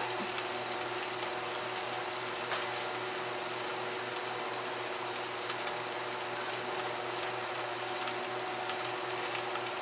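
Covered wok of beef and broccoli steaming and sizzling on medium-low heat: a steady hiss with a low steady hum under it, and one faint click about two and a half seconds in.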